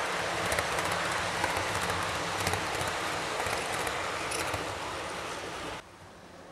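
HO-scale model passenger train rolling past on the track: a steady rolling rush with irregular clicks from the wheels, fading slowly as the last cars go by. Near the end it drops suddenly to a faint hum.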